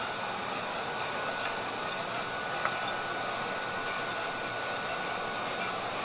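Steady rushing roar of forge-shop equipment, with a faint steady whine running through it and no hammer blows; a single faint tick about two and a half seconds in.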